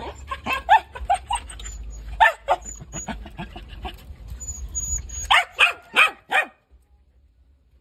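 A dog barking in a run of quick yaps, then four loud barks in a row about five and a half seconds in, after which it falls silent.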